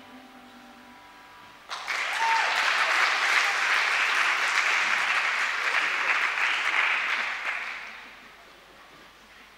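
Audience applauding, breaking out suddenly about two seconds in and dying away near the end, with a short high-pitched call just after it starts.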